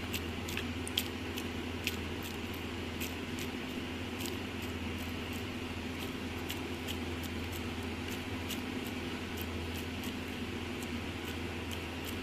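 Steady low hum with faint, irregular small wet clicks as raw chicken mince is squeezed and pressed onto a seekh skewer by hand.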